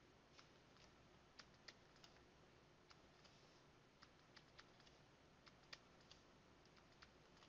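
Faint, irregular little clicks and taps of a pen stylus on a tablet's writing surface as digits are written by hand, over near-silent room tone.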